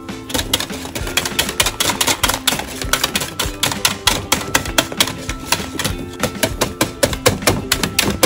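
Wire balloon whisk beating thick custard cream in a copper pot, its wires clicking and scraping against the pot's side in a rapid, irregular rattle of several strokes a second.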